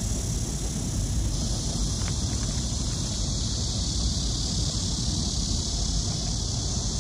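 Wind buffeting the microphone in a low, fluctuating rumble over a steady hiss of heavy rain.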